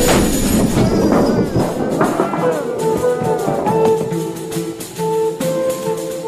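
Background film music with repeated plucked, guitar-like notes.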